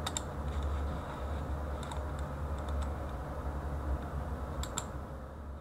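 A few sharp computer mouse clicks, some in quick pairs, over a steady low electrical hum.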